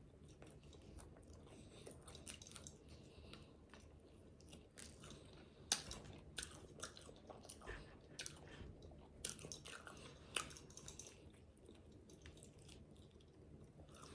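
Close-miked chewing and biting of fried chicken wings, with sharp crunches at irregular moments through the middle of the stretch.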